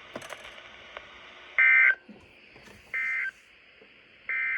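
Three short bursts of SAME digital data tones from a NOAA Weather Radio broadcast, about a second and a half apart, the first the loudest: the end-of-message code that closes a tornado warning.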